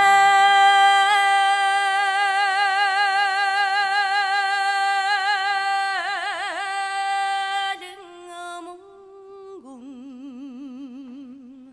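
A solo female voice singing unaccompanied: one long held high note with a wavering ornament in the middle, breaking off just before eight seconds, then a quieter, lower note sung with a wide vibrato.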